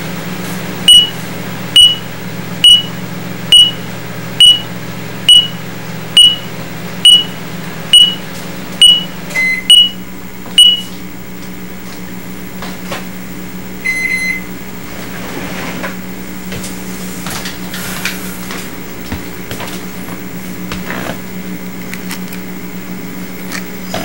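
Microwave oven running with a steady hum while an old radar detector beeps about a dozen times, roughly once a second, alerting to the oven's microwaves, then falls silent. A single lower, longer beep sounds a little past the middle.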